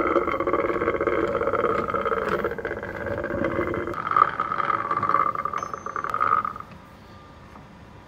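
The scroll of a large three-jaw lathe chuck being wound to run the jaws out of their slots: a steady mechanical whir with a fast rattle. It gets louder about four seconds in and stops abruptly about six and a half seconds in, leaving a low hum.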